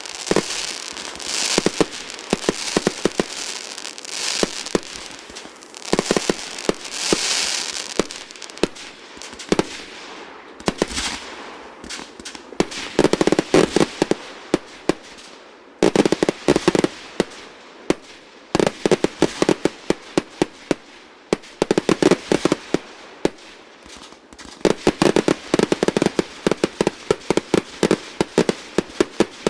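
Fireworks display: strings of sharp bangs and crackling, with hissing, crackling bursts through the first several seconds, then dense rapid volleys of reports in clusters to the end.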